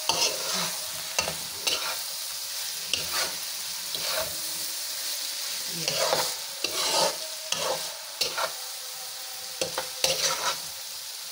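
Okra masala frying in a metal wok: a steady sizzle, with a spatula scraping and knocking against the pan at irregular moments as it is stirred.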